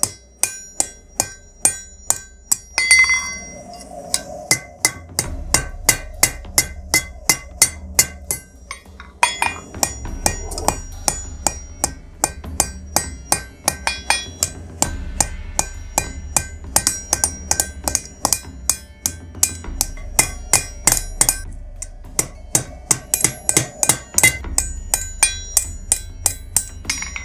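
Hand hammer striking red-hot mild steel over an anvil's horn, about two to three blows a second, each with a bright metallic ring, in runs broken by short pauses: forging a socket into a round cone.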